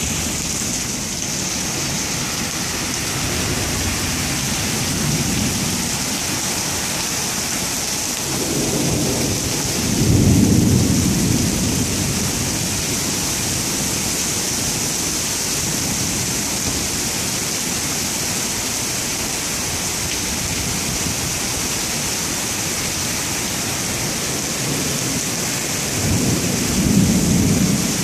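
Heavy rain pouring down in a steady hiss, with two low rumbles of thunder swelling up, about ten seconds in and near the end.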